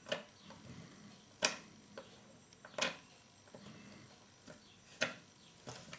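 Small hard-plastic Kinder Surprise toy parts clicking and tapping against a wooden tabletop as a figure is fitted onto its base: about six short, sharp clicks at uneven gaps, the loudest about a second and a half in.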